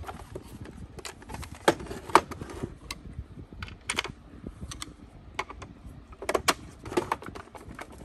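Hard plastic housing of a Shark Navigator vacuum's floor nozzle clicking and knocking as it is handled, turned over and set down on a workbench: a string of irregular sharp clicks, a few louder knocks among them.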